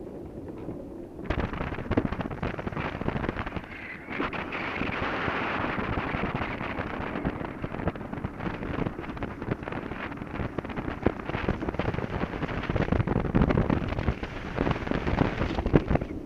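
Wind buffeting the microphone and tyres rumbling on asphalt as an engineless gravity racing cart runs downhill at speed, with frequent knocks and rattles from the cart over the rough road surface. It gets markedly louder about a second in.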